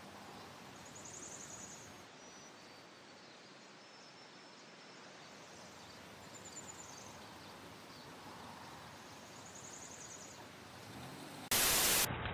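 Quiet outdoor ambience with a faint, high-pitched trilling call heard three times. Near the end a sudden loud burst of hiss lasts about half a second.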